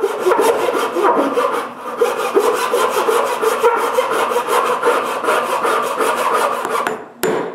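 Hand saw cutting a slot into a plywood block with quick, even back-and-forth strokes, stopping near the end.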